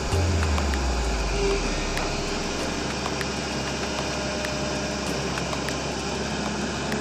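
Sany SY350C excavator's diesel engine running steadily with a low drone that eases down within the first second or so and then holds even.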